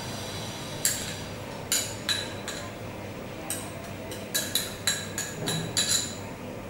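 Metal spoon clinking and tapping against glass bowls as powdered sugar is spooned into water. About a dozen light clinks, each with a brief high ring, sparse at first and coming quicker in the second half.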